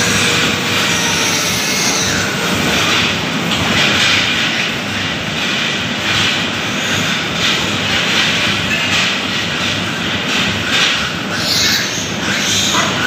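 Steady loud roar of a pig barn's large ventilation fans. An electric piglet-tooth grinder whines faintly at the start, stopping after about two seconds as it comes off the piglet's teeth.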